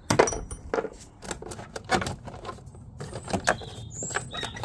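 Metal hand tools clinking and clattering as they are handled in a socket-and-spanner set case: a string of sharp clicks and knocks, the loudest just after the start.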